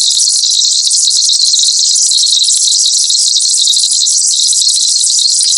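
Electronic pest-repellent sound effect, sold as driving off rodents, mosquitoes and insects: a loud, steady, high-pitched hiss with a thin whistle-like tone on top, unchanging throughout.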